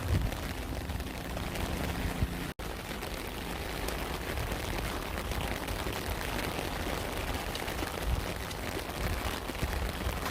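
Steady rain falling, an even pattering hiss with occasional low thumps. The sound cuts out for an instant about two and a half seconds in.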